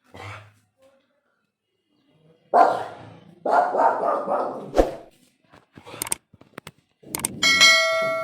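A dog barking in a few harsh bursts, then a ringing, bell-like tone that starts near the end.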